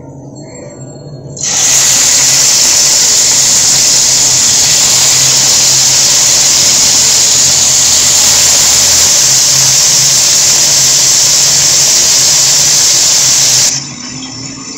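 Chicken shashlik skewers sizzling in hot oil in a frying pan: a loud, dense hiss that starts suddenly about a second and a half in, as the skewers go into the oil, and cuts off suddenly near the end.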